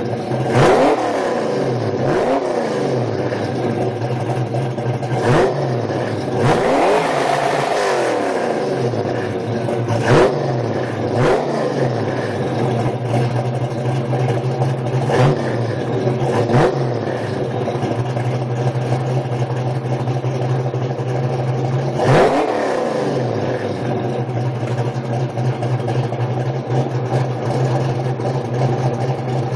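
Ford Fox-body Mustang's modified engine and exhaust blipped repeatedly from idle: about nine quick revs that rise and fall back sharply, one held for about a second and a half, then a steady idle for the last several seconds.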